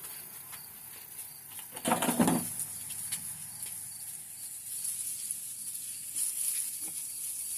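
Insects trilling steadily in a high, even hiss, with a short, louder rustle about two seconds in, as of dry onion skins being handled.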